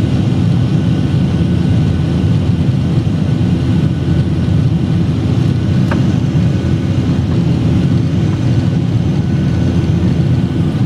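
Airliner's turbofan engines and airflow running steadily, heard inside the passenger cabin during the climb after takeoff: an even, low rumble, with one faint click about six seconds in.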